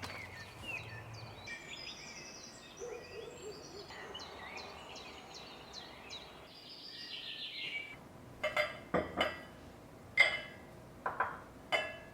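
Birds chirping and singing. From about eight seconds in, hard objects clink together about seven times, each clink sharp with a short ring.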